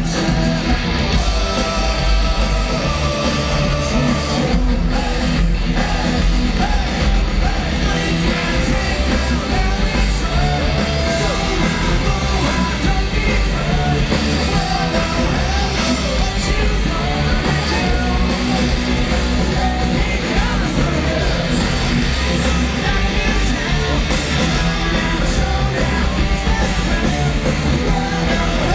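Punk rock band playing live: lead vocals over loud electric guitar, bass and drums, steady and dense throughout.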